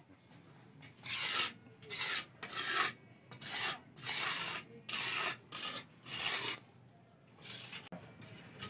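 Mason's trowel scraping along fresh cement plaster on the underside of a concrete door head: about eight rasping strokes in a row, smoothing the surface. The strokes start about a second in and stop shortly before the end.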